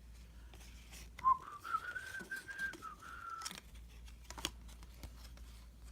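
A person whistling a single short note that slides up, holds for about two seconds and dips slightly at the end, with a few soft clicks of trading cards being handled.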